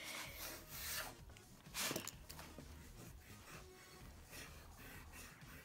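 Faint scratching of a pencil drawing strokes on spiral-notebook paper, the loudest stroke about two seconds in, followed by soft rubbing as the hand moves over the notebook.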